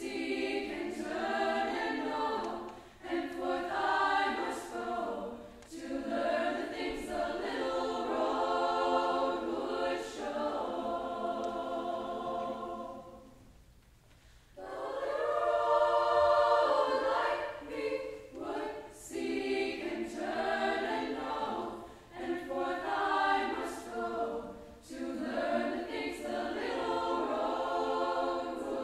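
A girls' choir singing in phrases. The singing stops for about a second just after the middle, then comes back in louder.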